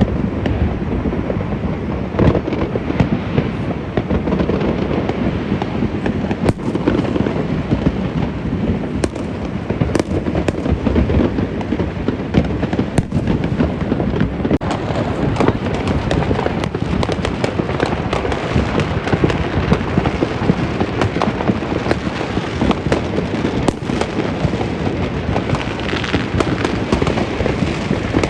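Many fireworks and firecrackers going off at once: a dense, unbroken crackle of overlapping pops and bangs.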